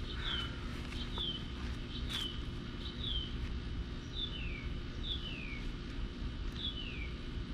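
A bird calling repeatedly: about seven short whistled notes, roughly one a second, each sliding down in pitch, the later ones longer and falling further. Under it runs a steady low hum.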